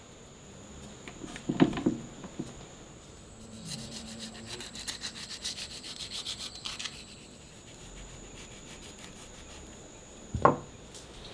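Quick, even scraping or rubbing strokes for about three seconds, set between two single knocks, over a steady high tone.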